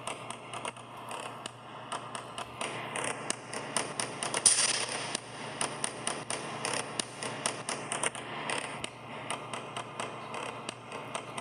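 Irregular crackling and clicking noise over a faint hiss.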